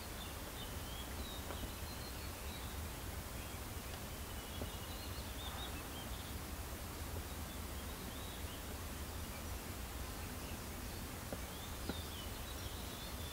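Outdoor mountain ambience: a steady low rumble and hiss, with faint, scattered bird chirps.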